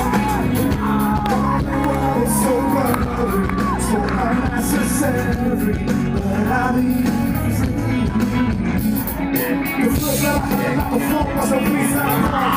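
Live band music over a PA, with a male vocalist singing into a microphone over electric guitar, bass and drums, heard from the crowd.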